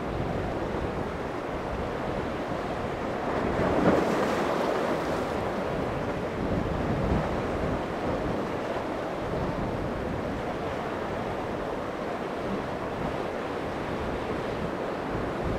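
Rough surf and waves breaking, with steady wind buffeting the microphone; a louder wash of breaking water about four seconds in.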